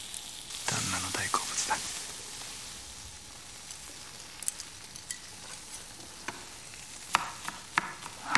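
Steady sizzle of food frying in a pan. A kitchen knife taps sharply on a cutting board a few times near the end as a vegetable is chopped.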